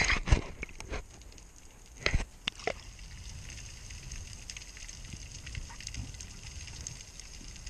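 Underwater sound picked up by a camera in its housing during a dive: a steady low water rumble with faint crackling. A few sharp knocks and clicks stand out just after the start and again about two seconds in.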